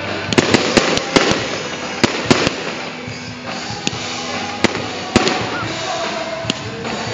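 Aerial fireworks bursting: a quick run of sharp bangs in the first second and a half, then single bangs spaced out over the rest, with background music playing under them.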